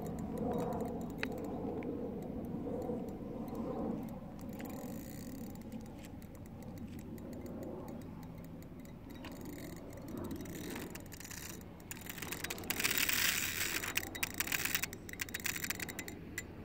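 Daiwa spinning reel clicking steadily while a hooked sturgeon is played on the rod. The ticking grows louder and denser about twelve seconds in.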